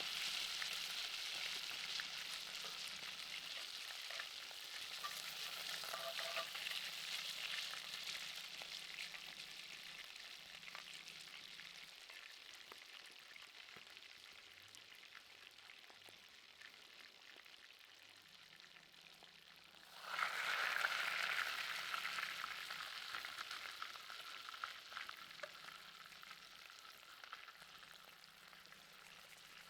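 Food sizzling on high heat, the hiss slowly fading. About twenty seconds in it suddenly surges louder, then dies down again.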